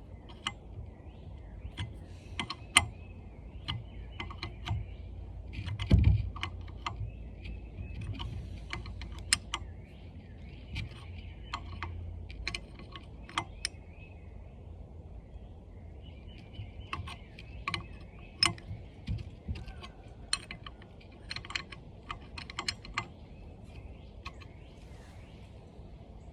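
Irregular metallic clicks and clinks of hand tools on nuts and studs, as studs are backed out of an old water pump with the double-nut method, with one heavier thump about six seconds in. Birds chirp faintly in the background.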